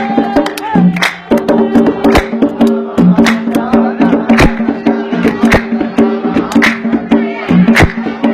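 Yemeni dan folk music in the maqsum rhythm: a sustained melodic line over hand percussion, with a sharp loud stroke about once a second and lighter strokes between.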